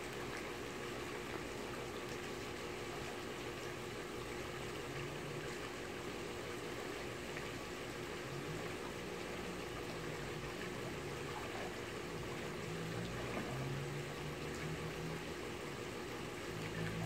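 Steady watery wash of a backyard swimming pool, with a faint steady hum underneath.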